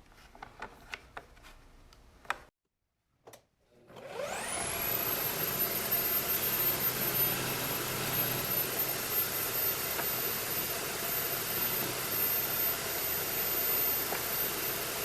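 A few light clicks, then an electric-drill-powered disc sander spins up with a rising whine about four seconds in and runs steadily with a high-pitched motor whine.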